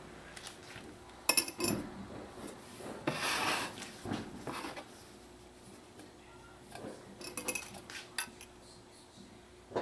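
Silicone spatula scraping and stirring in a stainless steel saucepan of thick sugar syrup, with scattered light clinks and knocks of cookware. Near the end a metal mesh strainer clinks against a glass measuring cup.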